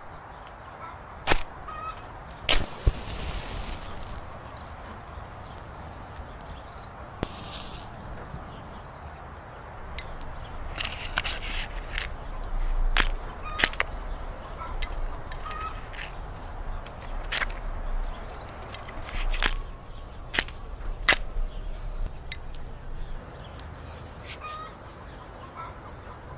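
Small firecrackers going off one at a time: a dozen or more sharp cracks at irregular intervals, with a short fizzing hiss a few seconds in.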